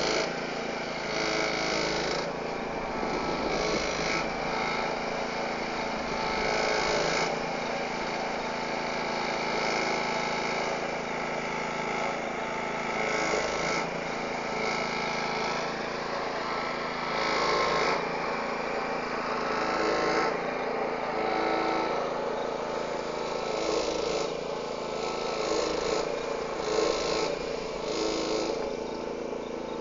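Engine of a bitumen distributor truck running steadily while spraying prime onto road base, with a rushing noise that swells now and then.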